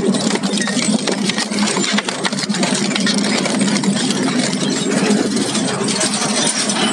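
Industrial shredder running: a steady machine hum under dense, continuous crackling and crunching as material is broken up.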